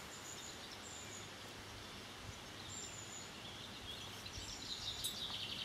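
Quiet outdoor riverside background noise, a steady hiss, with faint high bird calls now and then. A quick run of chirps starts about four seconds in.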